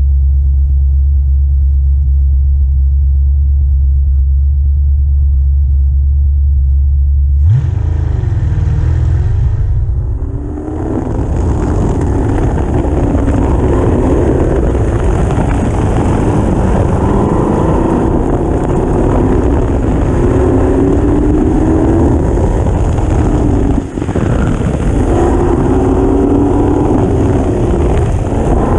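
Lotus 38 replica race car's engine holding a low, steady note, then launching about seven and a half seconds in with a rising rev and running hard, its revs rising and falling with two brief dips. At full throttle it misfires, which the driver puts down to a faulty ignition module and/or coil.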